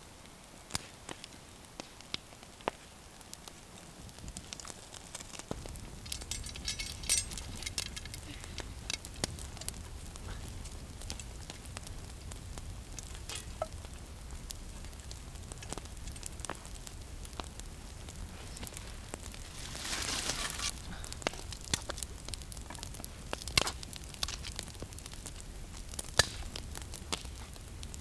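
Small wood campfire of dry twigs and branches crackling, with irregular sharp pops. A low rumble joins in about five seconds in, and there is a brief louder rush of noise about two-thirds of the way through.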